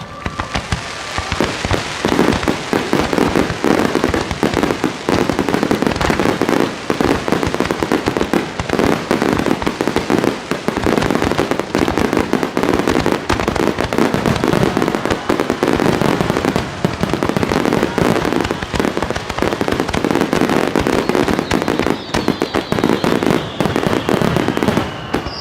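Starmine fireworks, a rapid-fire barrage of aerial shells, bursting and crackling in a dense, unbroken run. Near the end a whistling tone falls in pitch.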